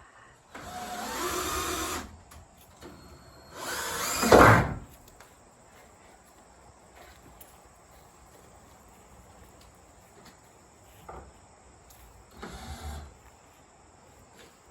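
A small electric motor runs in three short bursts: one of about a second and a half, a louder one around four seconds in, and a brief one near the end.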